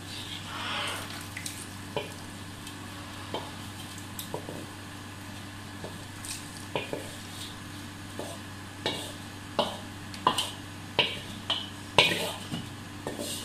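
Spoon or ladle clinking repeatedly against a pot and dish as hot sauce is scooped and poured over a steamed fish, with a short soft pour of liquid near the start. The clinks become more frequent and louder in the second half, over a steady low hum.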